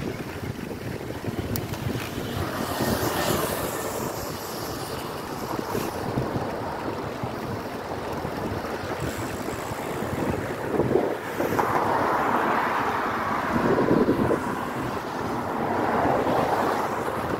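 Wind rushing over the microphone of a phone carried on a moving road bicycle, mixed with road noise on wet asphalt; the rushing grows louder about two-thirds of the way through.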